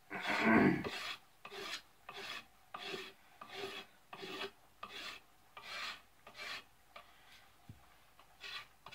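Knife spine scraping factory varnish off a wooden axe handle, down to bare wood: a steady run of short rasping strokes, a little more than one a second. The first stroke is the loudest, and the strokes grow faint for a moment about seven seconds in.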